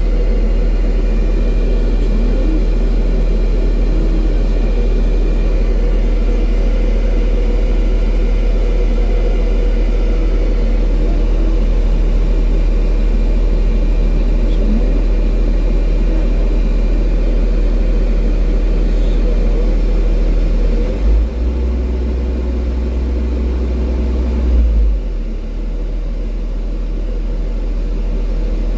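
Excavator's diesel engine running steadily, heard from inside the cab as a continuous low drone. About 21 seconds in a deeper hum joins for roughly four seconds, then the overall sound eases off a little.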